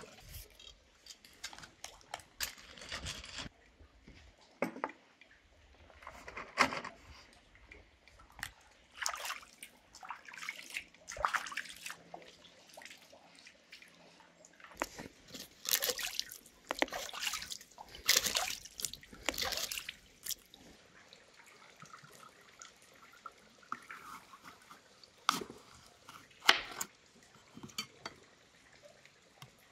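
Water splashing and dripping in short, separate bursts, mixed with scattered knocks and rustles of handling; the busiest stretch of splashing comes about halfway through.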